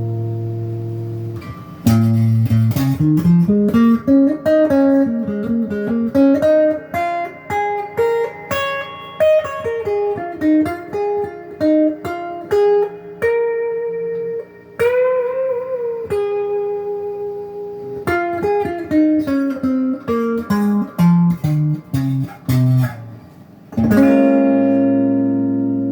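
Miller Les Paul–style electric guitar played clean through its stock pickups, selector on both pickups: a ringing chord, then quick single-note runs up and down with a bent note midway, and a chord struck near the end that is left ringing.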